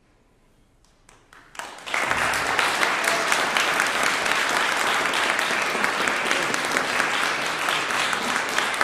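Audience applause: a near-silent pause, then a few scattered claps about a second in that grow into full, steady clapping.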